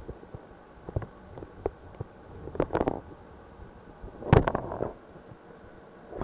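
Knocks and gurgling rumbles inside a water main as an inspection camera head is pushed through the rust-encrusted pipe: a few single knocks, a gurgling cluster about two and a half seconds in, and a louder one just past four seconds.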